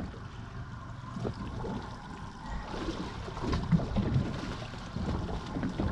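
Water lapping and sloshing against a small fishing boat's hull, with a low uneven rumble and a few light knocks.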